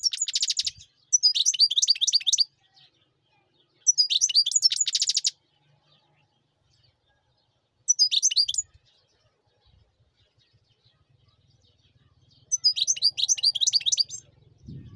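European goldfinch singing: bursts of rapid, high twittering song with fast buzzy trills, about five phrases separated by pauses of one to four seconds.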